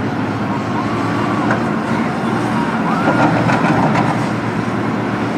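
Excavator's diesel engine running steadily, with a few short high glides over it around the middle.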